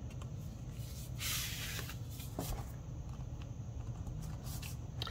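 Hands handling a paper-covered cardstock card: a short paper rustle about a second in, then a few light taps and scrapes as the card is picked up, over a low steady hum.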